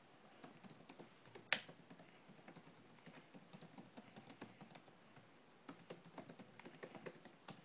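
Faint computer keyboard typing: runs of quick key clicks, with one louder click about a second and a half in.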